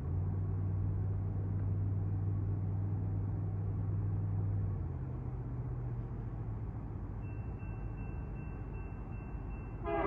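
Distant Union Pacific locomotive air horn: one low, steady blast lasting about five seconds, with a fainter echo hanging on until about six seconds. About seven seconds in, a high, rapidly pulsing ring starts from the grade crossing's warning bell.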